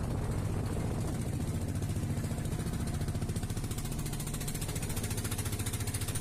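Fishing boat's engine running under way: a steady low hum with a fast, even thumping pulse.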